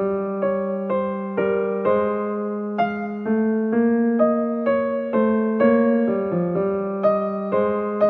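Slow solo piano music: single melody notes struck about twice a second over a sustained low bass note.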